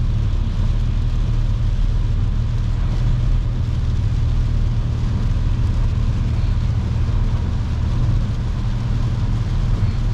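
Steady low rumble of road and tyre noise inside a car's cabin at highway speed on a wet road, even throughout with no distinct events.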